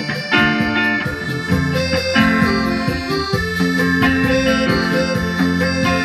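Live band music: a Korg keyboard holding sustained notes and chords over an electric guitar, a steady full sound with no pauses.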